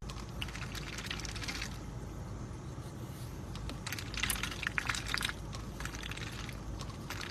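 Faint crackling and rustling in two short spells, over a steady low background hum.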